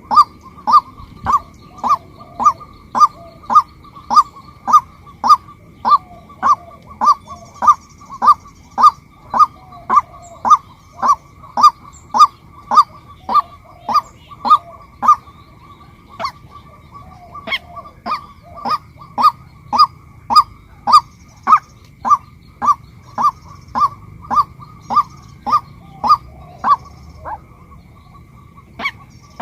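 Female white-breasted waterhen calling: a long run of short, loud, honking notes repeated at about two a second, with a brief pause partway through. The notes stop near the end.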